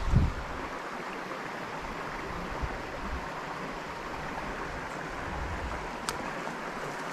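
Steady rush of a small stream's running water, with a low thump right at the start and a faint sharp tick about six seconds in.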